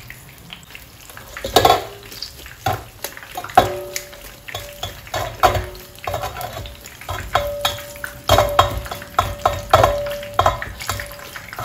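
Mesh colander full of flour-dusted fish pieces being shaken and tossed in a stainless steel sink to coat the fish in flour. Irregular knocks and rattles, and the metal rings briefly after several of the hits.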